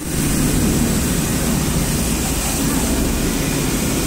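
Hot air PVC welding machine running, a steady rushing noise with a low hum, as it welds a rope hem into PVC sheet.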